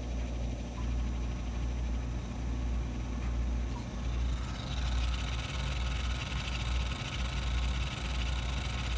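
MiniScribe 6053 MFM hard drive running a seek test in an IBM AT: the heads seek rapidly back and forth over a steady low hum from the spinning drive and the PC. The sound turns brighter and hissier about halfway through.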